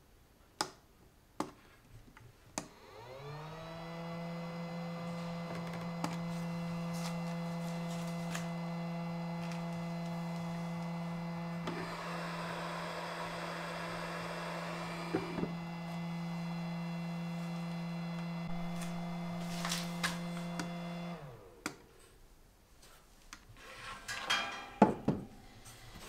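eSun eBox Lite filament dryer's fan spinning up after a couple of clicks from its control button and running with a steady hum. For a few seconds in the middle, with the lid lifted, a louder rush of air joins it, with a knock as the lid comes off and goes back. The fan then winds down near the end, followed by a few handling knocks.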